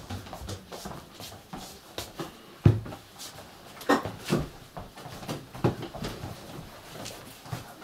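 Footsteps, shuffling and scattered knocks of several people coming into a small room, with a loud low thump about two and a half seconds in and two sharper knocks around four seconds.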